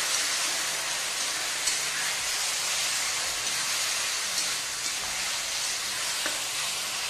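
Ginger, garlic and green chilli paste sizzling with browned onions in hot oil in a metal kadhai, a steady frying hiss, while a metal spatula stirs it. The spatula gives a few light clicks against the pan.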